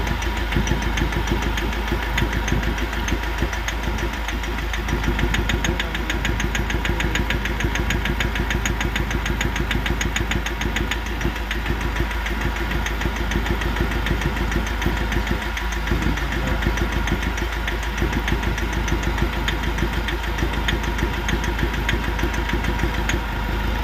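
Mahindra Scorpio's mHawk four-cylinder common-rail diesel idling rough with a rapid, steady tak-tak knock. This is a cylinder cut-out test, with injector connectors being pulled one at a time to find the bad one. The mechanic puts the knock and vibration down to one faulty injector.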